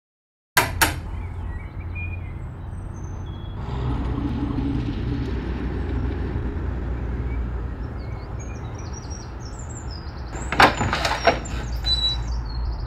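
Steady low rumble of outdoor traffic ambience with scattered high chirps, opening with two sharp clicks. About ten and a half seconds in, a quick series of knocks on a wooden front door, followed by lighter clatters as the door is opened.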